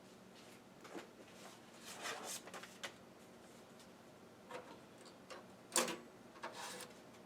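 Scattered light clicks and scrapes of a 5.25-inch floppy disk being handled at the slot of a Commodore 1541 disk drive that lacks its door lever, with one sharper click near the end.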